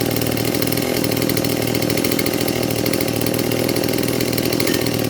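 Stihl MS 180 chainsaw's small two-stroke engine running steadily at an even speed. The saw has just been rebuilt with aftermarket crankshaft and bearings, and with its carburettor freshly adjusted it runs normally and steadily.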